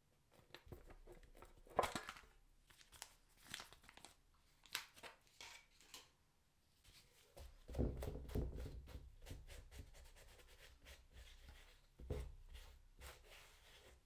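Quiet hand-handling of a sneaker during cleaning: scattered crinkles, scrapes and sharp clicks, with a denser stretch of rubbing and dull thumps a little past the middle.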